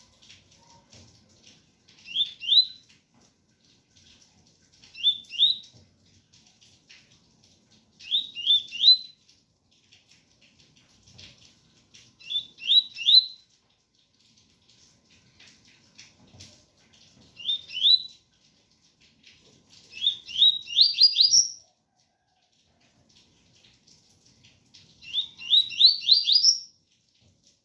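Double-collared seedeater (coleiro) singing the 'tui-tui' song: short phrases of two to five quick rising whistled notes, repeated every few seconds, seven times in all. Faint rain patter sounds underneath.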